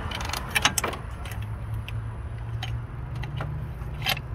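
Scattered light metallic clicks and clinks as a metal throttle cable bracket and its cables are handled and fitted over engine studs by hand. A steady low hum runs underneath and rises slightly in pitch about three seconds in.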